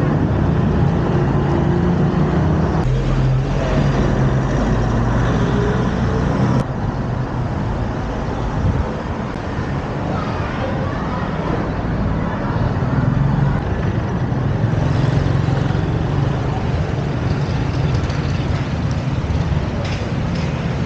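Town street traffic: vehicle engines running and passing, with a steady low engine hum.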